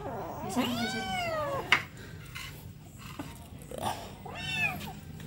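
A kitten meows twice: a long meow that rises and falls in pitch near the start, and a shorter one near the end. A single sharp knock sounds just after the first meow.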